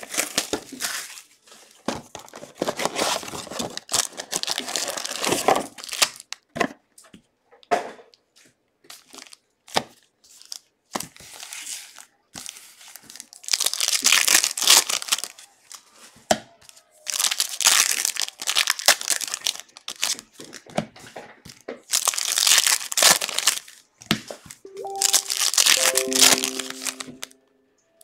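Foil wrappers of Donruss Elite basketball card packs crinkling and tearing as the packs are ripped open, in repeated bursts of a second or two.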